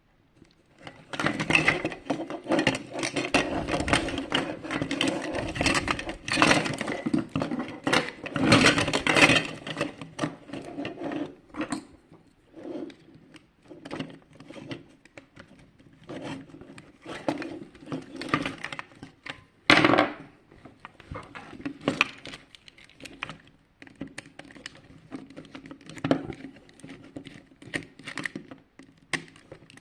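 Plastic housing and parts of an alarm clock being handled and worked apart: irregular clicks, cracks and scraping, densest in the first ten seconds, then sparser, with one sharp crack about twenty seconds in.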